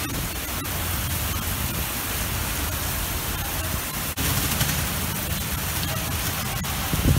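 Heavy rain pouring down in a windy thunderstorm: a steady hiss, with a low rumble of wind on the microphone and a short gust near the end.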